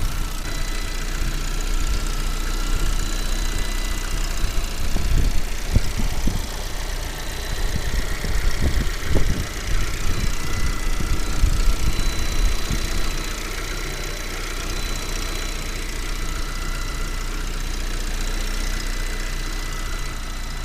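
Car engine idling with a faint steady high-pitched whistle over it, which the owner puts down to the ignition coils or the electronically controlled throttle body and considers harmless. A few irregular low thuds come through in the middle.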